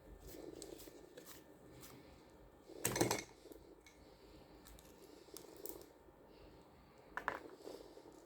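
Faint handling of a scooter starter motor while its small housing screws are taken out, with light metal clicks and two sharper clicks about three and seven seconds in.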